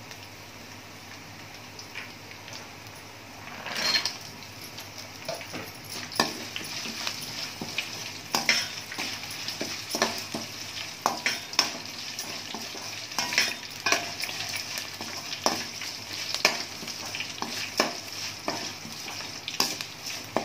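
Tempering of mustard seeds, lentils, cashews, chillies and curry leaves sizzling in hot oil in a stainless steel kadai. From about four seconds in, a perforated steel spatula stirs it, scraping and clinking against the pan again and again over the steady sizzle.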